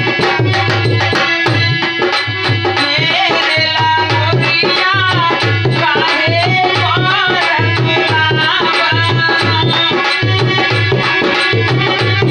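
Rajasthani languriya folk music: a dholak drum beating a steady rhythm under held harmonium chords. A man's voice sings a line from about three seconds in to about nine seconds in.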